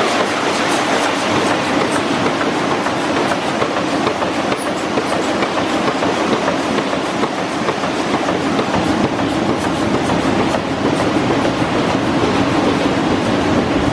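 Manroland Roland 708 eight-colour sheetfed offset press running: a loud, steady mechanical clatter with dense, rapid clicking.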